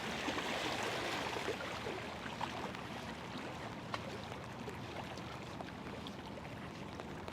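Steady rushing of river current against a rocky bank, with a few faint ticks scattered through it.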